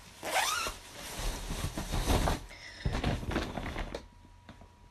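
A jacket zipper pulled open with a short rising zip, then rustling of clothing and a plastic shopping bag being handled.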